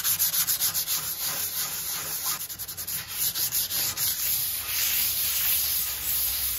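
220-grit sandpaper rubbed by hand over a painted wooden box top, lightly distressing the paint. Quick back-and-forth strokes, about five a second at first, blending into a steadier scratching in the second half.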